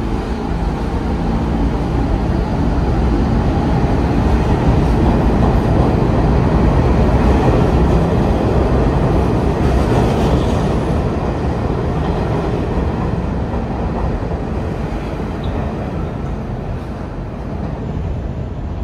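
New York City Subway R46 train running past along the platform: a steady rumble of wheels on rail, building to its loudest about seven seconds in and fading toward the end.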